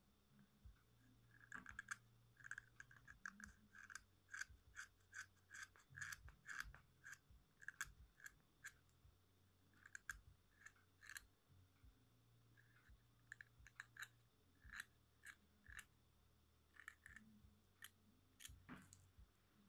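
A pencil being sharpened by hand with a blade: a series of short, quiet shaving strokes through the wood, about two a second, breaking off a little past the middle and then coming more sparsely.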